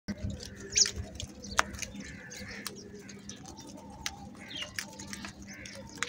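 A flock of house crows feeding on grain scattered on concrete: scattered short calls over many sharp taps of beaks pecking at the hard ground.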